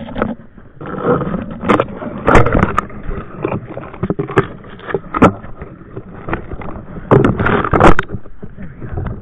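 Snow crunching and twigs and branches scraping over a body-mounted action camera as a climber pushes up a snowy, brushy slope, with irregular scuffs and knocks. The loudest rubbing comes about a third of the way in and again about three-quarters of the way through.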